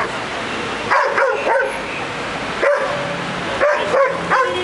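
Dog barking repeatedly, about eight short sharp barks at irregular intervals, over steady background noise.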